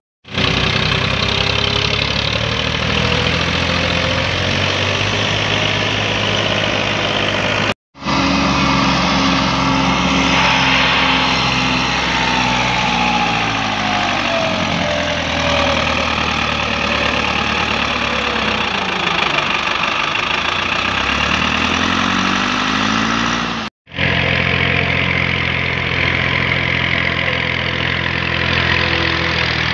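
Massey Ferguson tractor diesel engines running under load while pulling heavily loaded trolleys through soft dirt, in three clips separated by brief silent cuts about 8 s and 24 s in. In the middle clip the engine pitch rises and falls.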